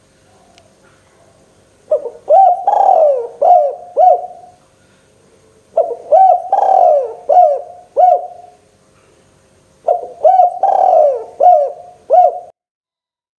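A spotted dove (tekukur) singing its cooing song: three phrases about four seconds apart, each a run of about five coos with a longer drawn-out note in the middle.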